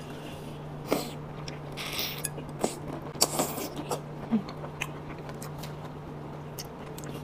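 Close-miked mouth sounds of eating a cooked prawn dipped in sauce: scattered wet smacks and clicks, with two brief slurps around two and three seconds in, over a steady low hum.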